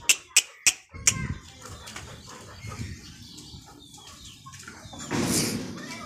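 A shaker beat of quick, even strikes, about four a second, stops about a second in. Then comes a low barn ambience with faint chicken sounds, and a brief louder rustle near the end.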